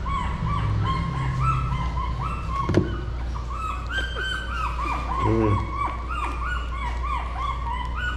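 Shih Tzu puppies whimpering: a continuous run of short, high, arched whines overlapping one after another, with a single sharp tap a little before three seconds in.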